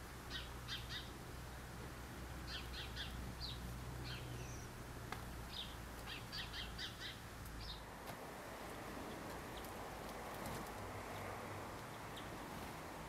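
Small songbirds calling: short, high chirps in quick groups of three or four, through the first half. From about eight seconds the calls stop and a steady hiss takes over.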